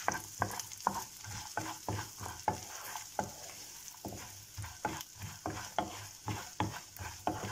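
Wooden spatula stirring and scraping chopped walnuts and red pepper powder around a nonstick frying pan, about two to three strokes a second, over the steady sizzle of the nuts frying in hot oil and butter.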